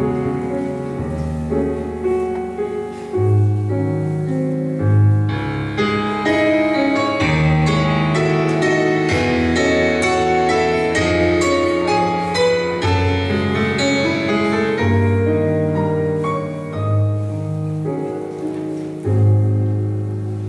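Instrumental introduction to a hymn played on a keyboard in a piano-like sound: slow chords over held bass notes, before the singing begins.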